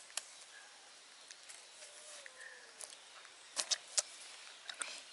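Quiet background with scattered sharp clicks and soft rustling, most of them in the second half, from a tissue being rubbed over a baby monkey's fur, and a few faint short chirps.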